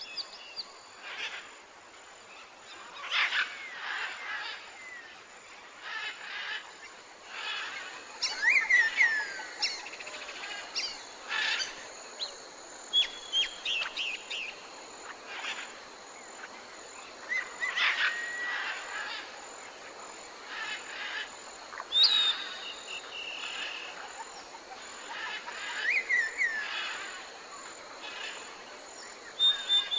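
Tropical forest ambience: many birds calling and whistling, with rising and falling whistled notes, over a steady hiss of insects.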